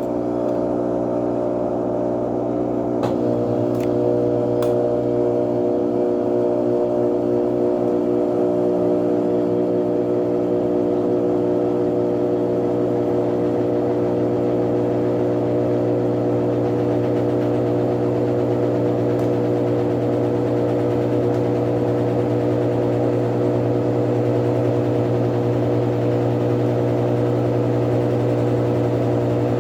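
Brastemp Total 7 kg BWL07A top-loading washing machine in its spin cycle, the motor and drum running with a steady hum. There are a few light clicks about three to four seconds in, after which the hum settles slightly louder and stays even.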